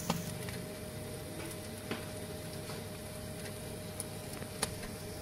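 Fat and juices sizzling softly around a stuffed tripe roll (dowara) roasting in a glass baking dish in the oven, with a few small sharp pops over a steady hum.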